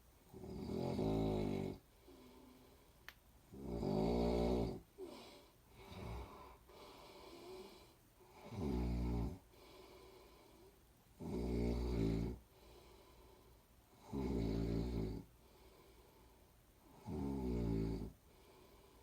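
A person snoring in a steady rhythm: about seven rough, low snores, one every two and a half to three seconds, with quieter breaths in between.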